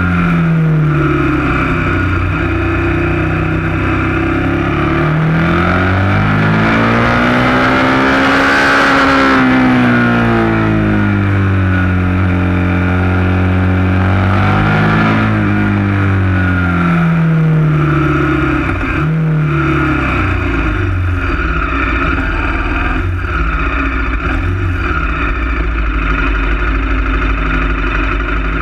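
KTM 1190 Adventure S's V-twin engine heard onboard, its revs rising and falling repeatedly as it pulls up a winding mountain road. About two-thirds of the way through the revs drop and it settles to a steady idle as the bike stops.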